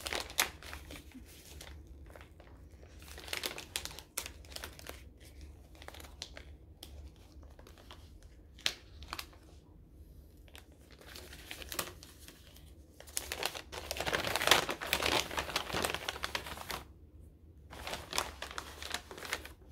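A small paper gift bag being crinkled and opened by hand: scattered rustling and crackling, with a louder stretch of crumpling for a few seconds past the middle.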